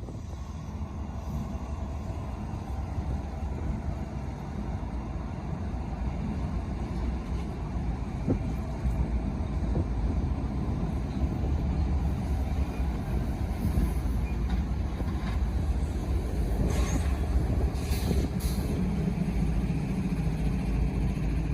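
Train running, with wind buffeting the microphone and a few short higher-pitched squeals or clanks near the end.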